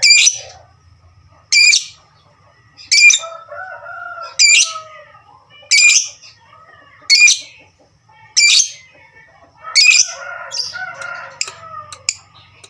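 Lovebird giving loud, short, shrill calls, eight in all, spaced about a second and a half apart. A softer, lower warbling call comes between them in the middle and again near the end.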